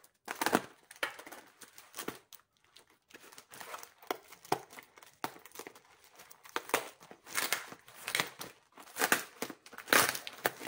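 White plastic mailer bag crinkling and rustling in irregular bursts as it is handled and pulled at to get it open, with some tearing.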